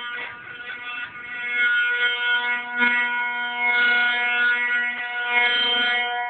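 Fender electric guitar string sustained by an E-Bow: one long held note with rich overtones that swells in and out like a bowed instrument. It drops away at the end.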